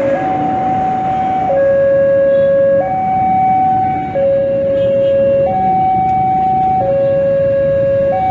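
Two-tone hi-lo siren, a high and a low note alternating about every second and a half, over steady street traffic noise.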